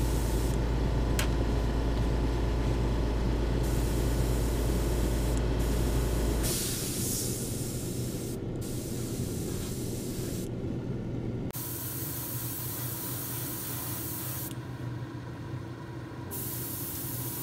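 Airbrush spraying paint onto a small lure body: a hiss that comes in stretches of a few seconds with short pauses. Beneath it runs a steady low hum, loudest in the first third.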